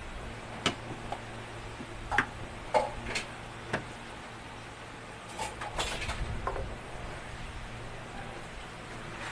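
Short sharp metal clicks and knocks from handling the parts of an electric fan motor and the tools used on it, a few at a time, then a denser run of knocks and scrapes about five to six and a half seconds in, over a steady low hum.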